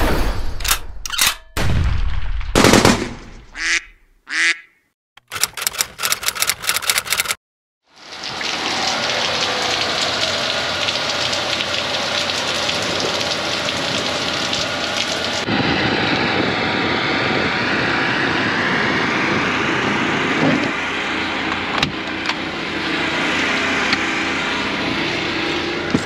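A few seconds of choppy, stuttering sound bursts broken by gaps, then steady heavy rain pouring down on pavement, its sound changing slightly about fifteen seconds in.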